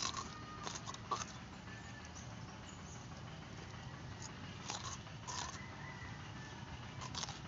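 Crisp crunching of raw bitter gourd (ampalaya) being bitten and chewed: a sharp bite at the start, then scattered short crunches at irregular intervals.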